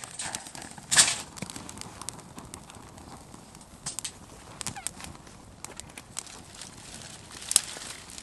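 Freshly lit wood-and-kindling fire crackling and popping in a perforated metal fire basket, with a loud sharp crack about a second in and another near the end.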